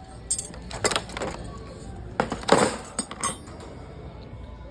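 Boxed set of metal flatware rattling and clinking as it is handled, in two short clusters of clatter.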